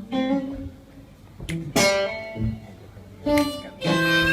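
Blues guitar playing between sung lines: several struck chords that ring and fade, with a longer held chord near the end.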